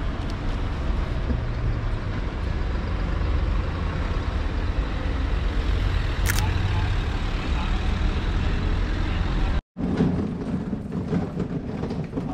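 A motor vehicle's engine running close by, a steady low rumble, with a single sharp click about six seconds in. Near the end the sound cuts out for an instant and comes back as lighter street noise.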